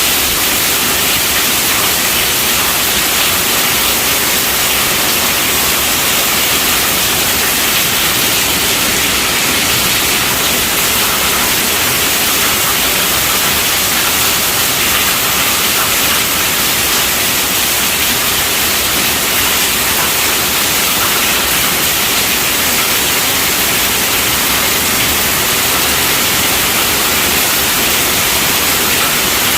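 Heavy rain falling on a tent roof: a steady, dense hiss with no let-up.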